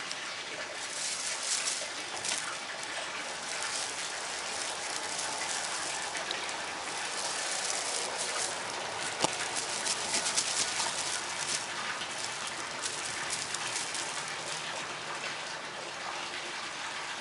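Metallic foil streamer toy rustling and crinkling in bursts as it is shaken for a cat, over a steady hiss.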